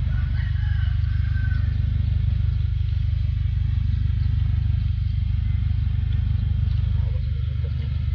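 A steady low engine drone, running evenly and unchanged throughout.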